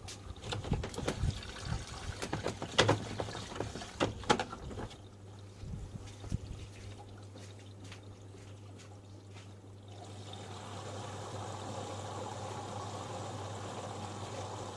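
Panasonic NA-147VB2 front-loading washing machine in the wash phase: the drum tumbles and laundry and water slosh with irregular knocks over a steady low hum. It goes quieter, then a steady rushing of water starts about ten seconds in.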